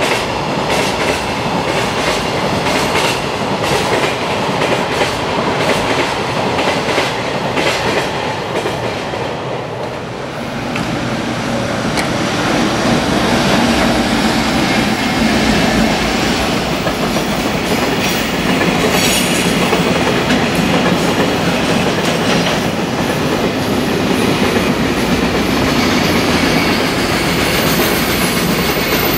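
Container freight trains passing on slab track, the wheels clattering over the rail joints in a quick rhythm. About ten seconds in the sound dips, then an electric locomotive hauling another container train runs past with a steadier rumble.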